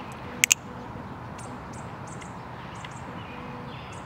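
Two quick sharp clicks about half a second in, typical of a butterfly knife's handles being flipped and latched, then a few faint scattered ticks over low background ambience.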